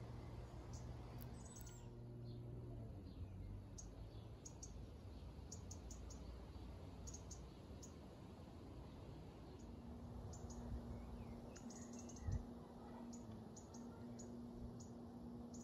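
Quiet garden ambience: faint, scattered high-pitched ticks and chirps throughout, with a low steady hum through the second half and a single soft thump about twelve seconds in.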